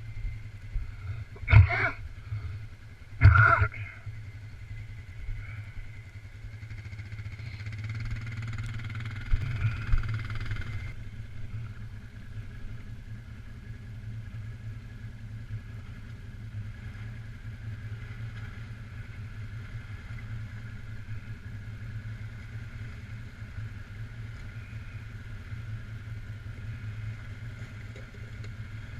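Quad bike engine running at low speed with a steady drone, and two loud sharp sounds about one and a half and three seconds in.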